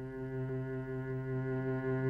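Film score: a single low note held on a bowed string instrument, steady and slowly getting louder.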